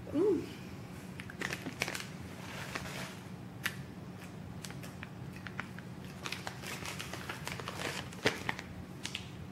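Thin plastic bag crinkling and crackling as it is handled, in irregular small crackles throughout. A short vocal groan sounds right at the start.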